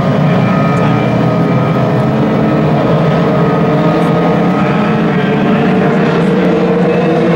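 A field of dwarf race cars with their engines running steadily at low speed, several engine notes overlapping in one continuous drone.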